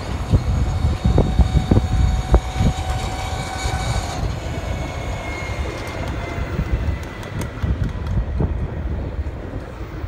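Wind buffeting the microphone and road rumble while riding an electric bike along a city street, with uneven low thumps. A faint steady whine sits underneath and fades about four seconds in.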